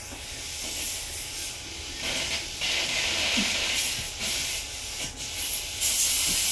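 Dental suction and air-water spray hissing at an open tooth, in uneven surges, with a sharp, loud burst of spray near the end.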